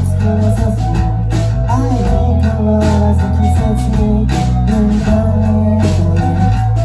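Live rock band playing loudly in a small club: distorted electric guitars, bass guitar and drum kit, with a male singer's voice over the band.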